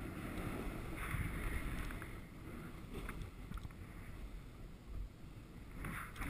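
Snowboard base sliding and carving through snow, a continuous swishing scrape over a low rumble of wind on the helmet camera's microphone, swelling louder about a second in.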